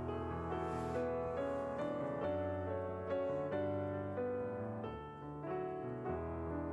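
Background piano music: a slow melody of sustained notes over low bass notes.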